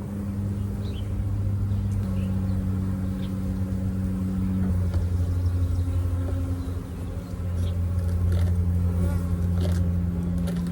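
A mass of honeybees buzzing in a package, a steady low hum whose pitch shifts slightly a couple of times.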